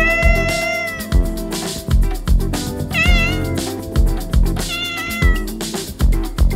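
Domestic cat meowing three times: one long meow of about a second at the start, a short wavering one about three seconds in, and a third shortly before the end. Background music with a steady beat and guitar plays under the meows.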